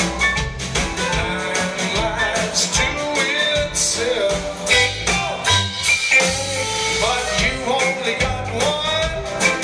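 Live rock band playing: drums, electric and acoustic guitars, bass and keyboard with a steady beat, and a lead voice singing over it.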